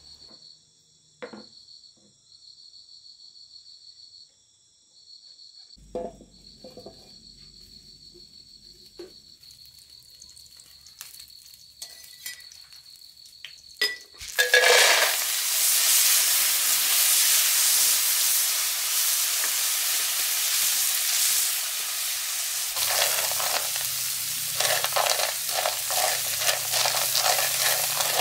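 Crickets chirping steadily, with a few knocks, then about halfway through food goes into hot oil with a sudden loud sizzle that keeps on as it is stir-fried. Near the end a low hum joins, along with the rhythmic scraping of stirring.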